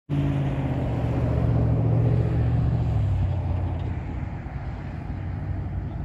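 A motor vehicle's engine hum, steady and then fading out about halfway through, over a steady rushing noise.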